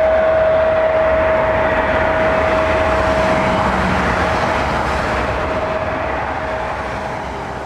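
The twin turbofan engines of a jet airliner at takeoff power as it climbs away. A steady rushing noise carries one constant whine and slowly grows fainter as the aircraft recedes.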